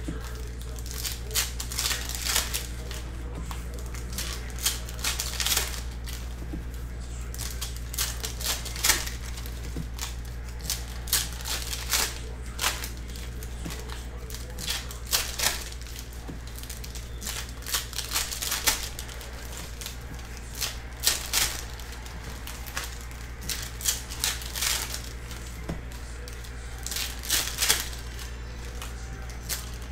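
Trading cards being handled, slid and flipped against one another while foil card-pack wrappers crinkle and tear, giving an irregular string of short, sharp rustles and snaps over a steady low hum.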